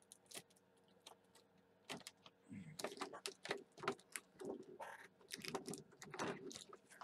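Faint, irregular crinkling and clicking of the planner set's clear plastic case and wrapping as it is handled and shifted on the desk, starting about two and a half seconds in.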